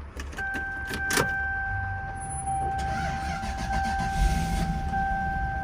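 Clicks from the key and controls, then a steady electronic warning tone inside the cabin of a 1998 Lexus SC400, over the low rumble of its engine. A rushing noise swells in about three seconds in and fades near the end.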